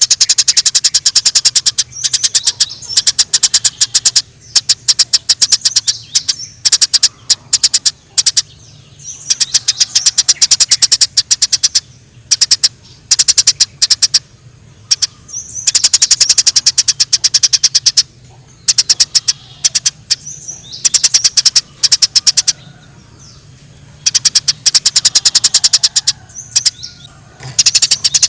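Eurasian tree sparrows chirping in fast, agitated runs of sharp chirps, several runs broken by short pauses: the excited 'fighting' chatter of sparrows. A faint steady low hum lies underneath.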